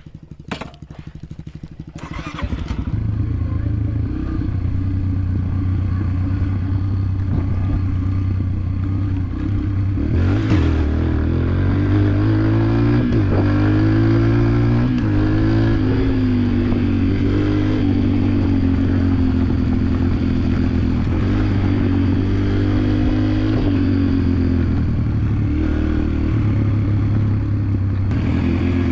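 Motorcycle engine running as it is ridden, building up a couple of seconds in, then rising and falling in pitch with the throttle and gear changes.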